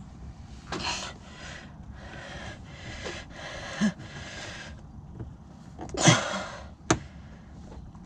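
Short scraping and rustling noises as plastic door trim is worked loose, a louder scrape about six seconds in, and a sharp click a second later as a panel clip pops out.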